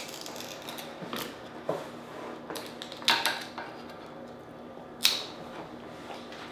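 Cooked Dungeness crab shell cracking and snapping as it is broken apart by hand: a handful of short, sharp cracks, the loudest about three seconds in and again about five seconds in.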